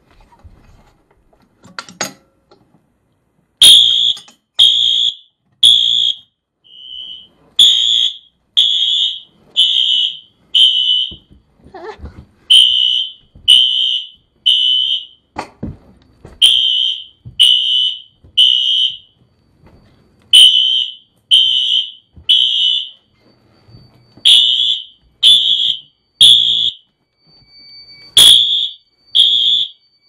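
Fire alarm sounding the temporal-three evacuation pattern: three loud, high-pitched beeps about a second apart, a short pause, then three more, over and over. It starts about four seconds in, after a couple of clicks.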